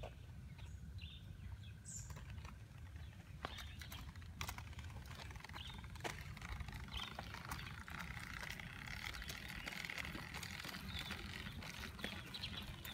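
Faint outdoor ambience: scattered short bird chirps over a steady low rumble, with occasional light clicks and taps.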